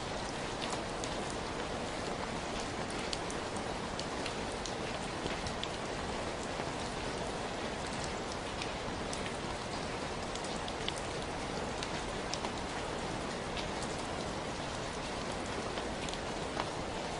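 Steady rain falling, with many separate drops ticking sharply against it.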